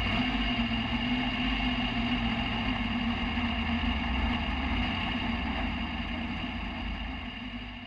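Dirt track race car's engine idling steadily as the car creeps along, heard from inside the cockpit, fading out near the end.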